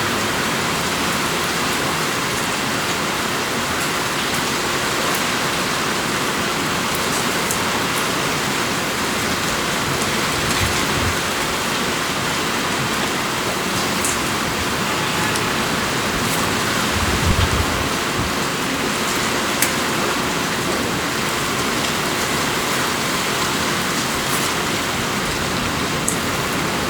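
Steady rain falling, a continuous even hiss with scattered drop ticks, and a brief low rumble of thunder about two-thirds of the way through.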